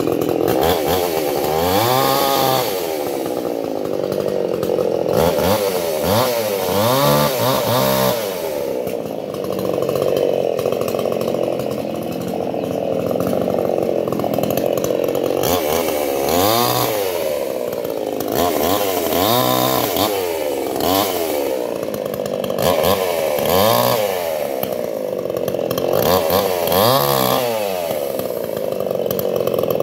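Petrol chainsaw cutting guava wood, its engine revving up and falling back again and again, every couple of seconds.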